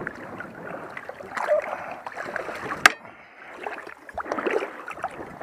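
Water splashing and sloshing in uneven bursts as a hooked blue shark thrashes at the side of the boat. A single sharp knock comes about three seconds in.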